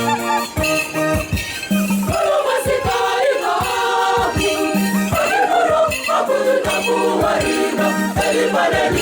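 Church choir singing a song in parts over a steady beat of percussion.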